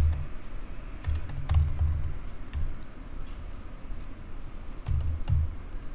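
Typing on a computer keyboard: irregular keystrokes with short pauses between them, each a sharp click over a dull thump.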